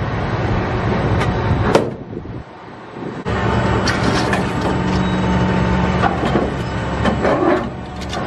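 Heavy machinery engine running with a low steady hum. Sharp metal clanks come through as scrap metal is pulled from a pickup truck bed, and the machine noise dips for about a second two seconds in.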